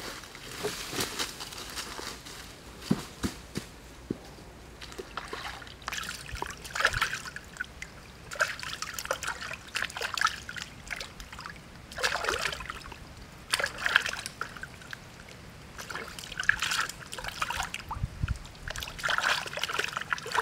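Water sloshing and trickling as a raw pork leg is rubbed and rinsed by hand in shallow stream water, in repeated uneven splashes.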